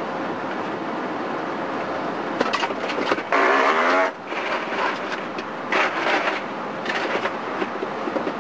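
Steady hum of vehicle noise. About three seconds in, a loud pitched sound lasts under a second, and a few shorter, quieter sounds follow.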